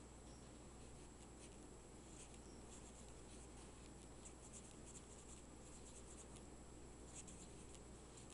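Pencil faintly scratching on paper in short shading strokes, coming in small clusters about two seconds in and again near seven seconds, over a steady low hum.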